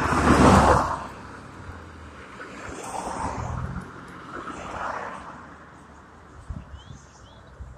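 Cars passing close on a street, each a swell of tyre and engine noise. The loudest pass is about half a second in, with two quieter ones around three and five seconds in.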